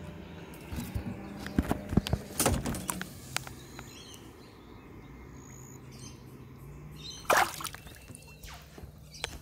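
Knocks and handling noises, then water splashing at the side of a boat as a small Australian bass is released, with one short loud splash about seven seconds in. Birds chirp in the background.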